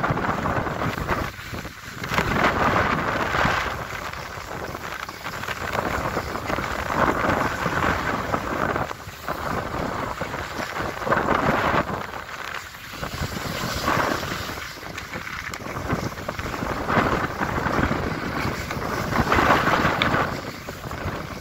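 Skis sliding and scraping over packed snow while descending a groomed cat track, the scrape swelling every couple of seconds, with wind rushing on the microphone.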